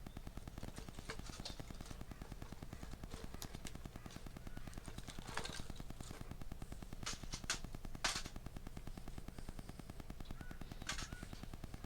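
Wood fire crackling, with several sharp pops a second or more apart.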